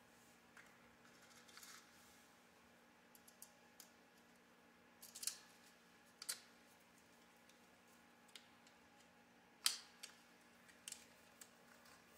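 Small metal screws clicking and clinking against the plastic compartments of a parts organizer box as they are picked through by hand. The clicks are faint and irregular, with small clusters about five and six seconds in and the sharpest click about ten seconds in.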